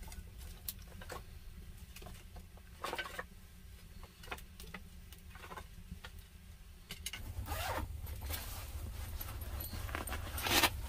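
Split wooden sticks clicking and knocking as they are fed into a wood fire, then, from about seven seconds in, a fabric backpack being handled, with a zipper pulled in a loud rasp near the end.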